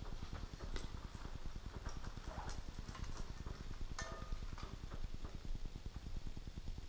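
Scattered light clicks and knocks from handling a solid-steel speaker flying frame and a measuring tool against it, over a low steady hum. About four seconds in, one sharper metallic click rings briefly.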